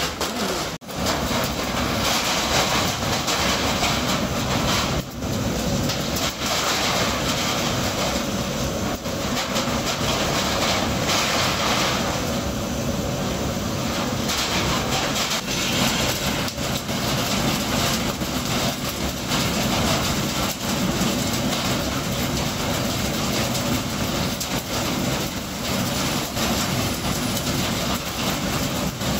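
A PCB component disassembly machine running, with waste circuit boards tumbling and rattling inside its heated rotating drum as the loosened components are knocked off and drop out. It makes a steady mechanical noise, dense with small clicks and clatter.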